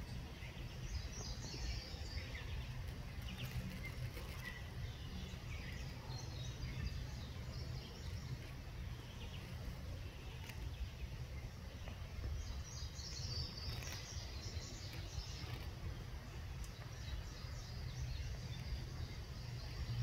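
Outdoor ambience: small birds chirping over a steady low rumble. There are clusters of quick, high chirps about a second in and again about two-thirds of the way through.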